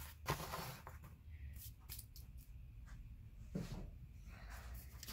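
Faint handling sounds: a brief rustle of cardboard being pressed flat on a table, then scattered light clicks and a soft knock about three and a half seconds in.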